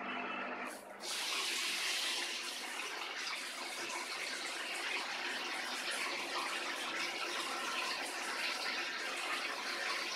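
Water spraying in a steady hiss from a handheld bidet shower head into a bowl, the shower fed by a small submersible pump in a bucket. The spray starts about a second in after a brief dip, with a faint steady hum underneath.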